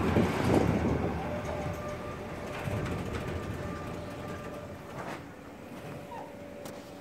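Rorschach-Heiden-Bahn open railway coach rolling slowly into the station and braking to a stop; the running noise of wheels and gear fades away. A faint, thin, steady squeal from the brakes comes in about a second in, and there is a single click near the end.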